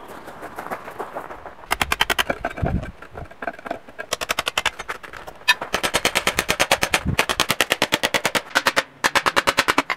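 Power chisel hammering investment plaster out of a steel casting flask: runs of very rapid, even impacts, about fifteen a second, broken by short pauses, as the mould is broken out to free the cast part.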